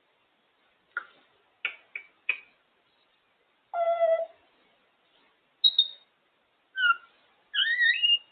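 African grey parrot making a string of sounds: four sharp clicks, then a short low hoot-like call, a brief high whistle, and a few whistles that glide up and down near the end.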